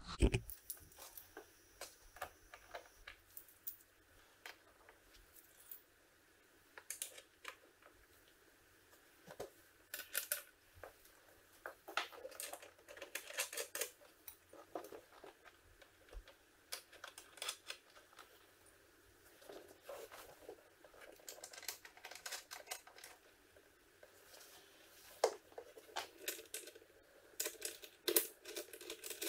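Hands working inside a motorcycle saddlebag, fitting small screws and mounting hardware: scattered clicks, taps and rustles of the bag's material, coming in short flurries.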